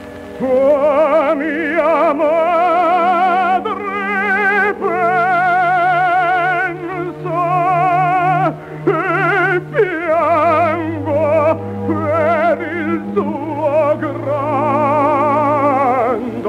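Operatic tenor singing an aria with wide vibrato over instrumental accompaniment, from an old 78 rpm shellac disc with little sound above the middle range. The voice enters about half a second in, after a short held chord.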